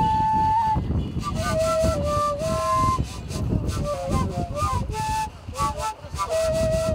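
Wooden end-blown flute playing a melody of held notes linked by quick ornamented steps, over a low, noisy background.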